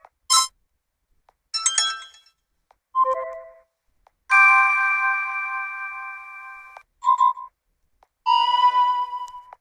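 A run of short smartphone notification sounds from a Vsmart Live, played one after another with silences between: about six brief chimes and jingles, the longest a held bright chord lasting about two and a half seconds.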